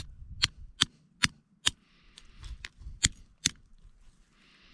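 A series of about ten sharp cracks, a little over two a second, of a hand-held stone striking boiled crab shell to crack it open.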